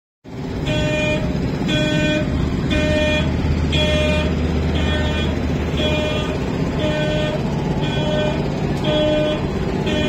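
A vehicle reversing alarm beeping about once a second, ten beeps in all, over a machine's engine running steadily.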